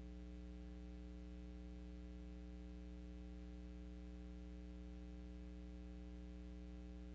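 Faint steady hum made of several low, constant tones that never change, with light hiss above them.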